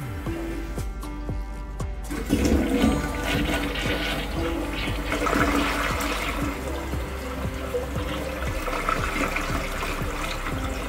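Toilet flushing: water rushes from the tank into the bowl and swirls down the drain, starting about two seconds in and loudest just after it starts. It is a test flush of newly replaced tank fittings (fill valve and flush valve).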